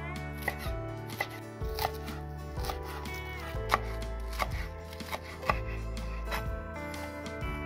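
Chef's knife chopping chives on a wooden cutting board: a series of crisp cuts, each ending in a tap of the blade on the board, roughly one to two a second. Soft background music runs underneath.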